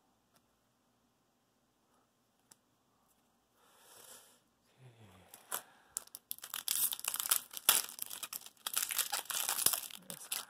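Magic: The Gathering booster pack's foil wrapper being torn open and crumpled by hand: a dense, crackly crinkling for the last four seconds or so, after a quiet start with a brief soft rustle.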